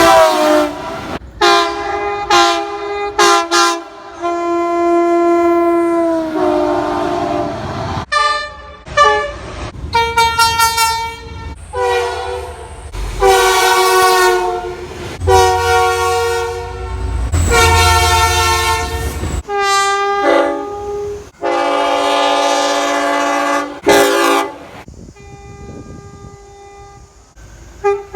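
Train horns sounding one after another, each a chord of several held notes, with abrupt changes from one horn to the next. A few of them drop in pitch as the train passes, and a low rumble of the passing train runs under the horns midway.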